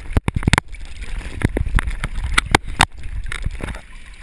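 Seawater sloshing and splashing against a GoPro's waterproof housing held at the surface, full of irregular sharp knocks and crackles, over a low rumble of wind and water on the microphone.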